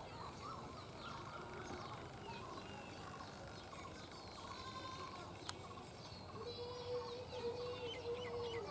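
Birds chirping with chickens clucking, many short calls scattered throughout, and a faint steady held note joining about two-thirds of the way in.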